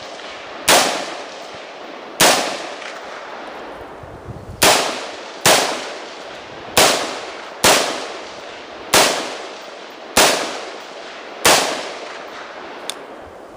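AR-15 carbine in 5.56 NATO with a 16-inch mid-length gas system firing nine semi-automatic shots at an uneven pace, about one every one to two seconds, each followed by a short echoing tail. A light click comes about a second after the last shot.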